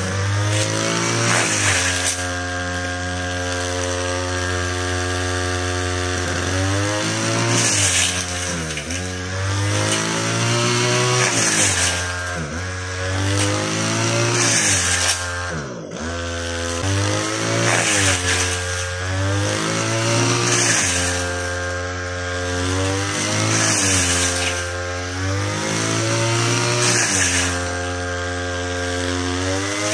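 Backpack petrol brush cutter running as it cuts tall grass. Its engine speed drops and climbs back every few seconds, with one deeper dip about halfway through.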